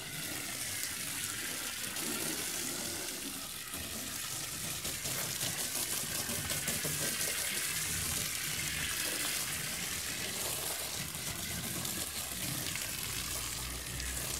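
Garden hose rinsing a car: an open stream of water splashing steadily onto the door panels and running off onto gravel.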